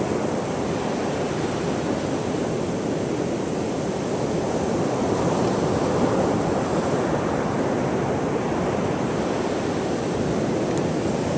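Ocean surf breaking on the beach: a steady rushing wash that swells slightly about halfway through.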